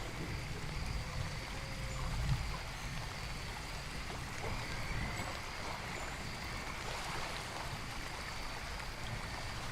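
Steady nature ambience of running, trickling water, as from a stream or rain, with a low rumble underneath.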